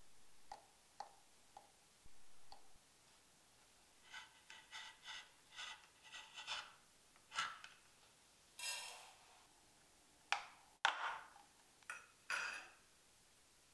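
Quiet kitchen prep sounds: a quick run of light knife taps and scrapes on a bamboo cutting board while a vanilla pod is split. Near the end come a few sharper clicks and clinks of a small metal sieve against a ceramic ramekin.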